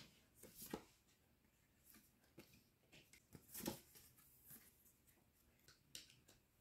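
Faint rustling and light taps of a paper instruction card and booklet being handled and laid on a table, then soft clicks as a GoPro camera on a fabric strap mount is picked up. The rustles come in short scattered bursts, the loudest a little past halfway.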